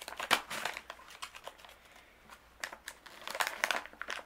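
Foil blind-bag packet crinkling in a child's hands as she opens it: a run of sharp crackles with a short lull about halfway through.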